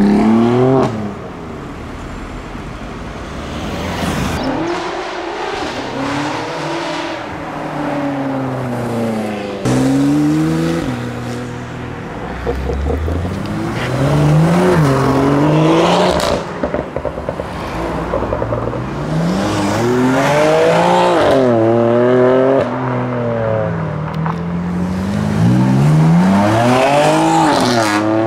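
A run of BMW M cars with turbocharged straight-six engines accelerating away and passing, each engine note climbing in pitch and dropping back at gear changes, in several short clips cut one after another.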